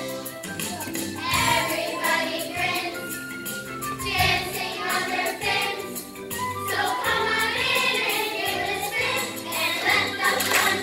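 A children's choir singing together over instrumental music.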